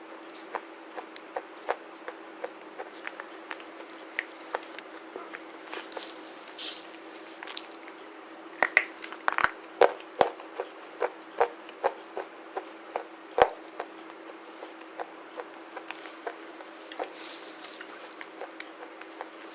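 Black slate being chewed close to the microphone: sharp, irregular crunches and clicks, coming thickest and loudest in the middle.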